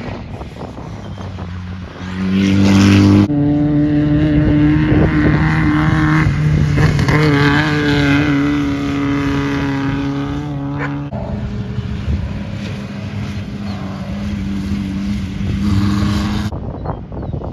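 Off-road race car engines running hard at speed as the cars pass, a steady engine drone with some wavering in pitch. The sound changes abruptly a few times where one pass is cut to the next.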